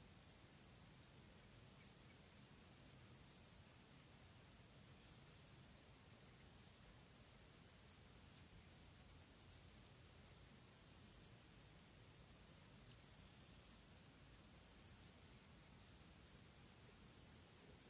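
Faint crickets chirping in an even rhythm of about two chirps a second over a thin, steady high trill; two of the chirps stand out louder midway.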